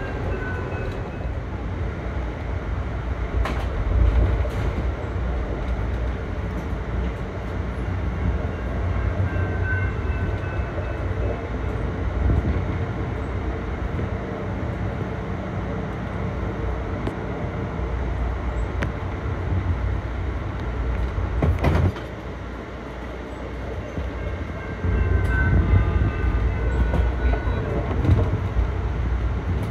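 Amtrak Downeaster passenger train running at speed, heard from inside the coach: a steady low rumble of wheels on rail, with a couple of sharp clicks. It eases off briefly after the second click and grows louder again near the end.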